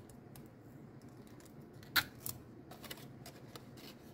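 Paper being folded and taped by hand: soft rustling of printer paper with a few short sharp crinkles, the two loudest about halfway through.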